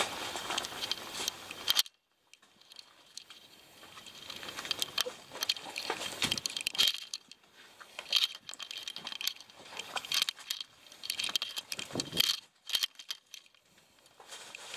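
Scattered scuffs, clicks and rustling of people clambering over boulders: shoes and hands scraping rock, clothing and gear brushing, with the camera being handled close up. There is a brief near-silent pause about two seconds in.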